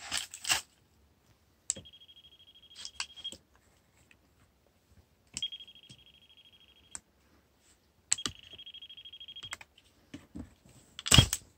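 Non-contact voltage tester beeping three times, each a steady high beep of about a second and a half, as it is held against the wall cables: the beep signals voltage on the wire. Handling clicks around the beeps, louder near the end.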